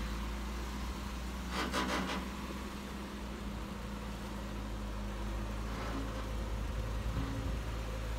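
Jeep Wrangler Rubicon's engine running low and steady as it crawls slowly up a rock ledge. A brief rushing noise comes about a second and a half in.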